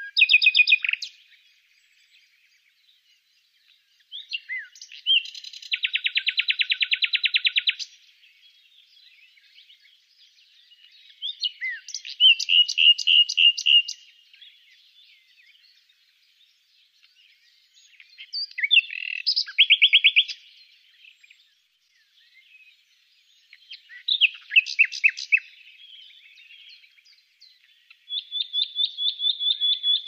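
Common nightingale singing: six short phrases a few seconds apart, each a run of rapidly repeated notes, the longest a fast rattling trill lasting about three seconds that starts some five seconds in.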